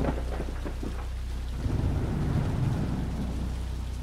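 Steady rain, with a low roll of thunder coming in about one and a half seconds in and slowly fading.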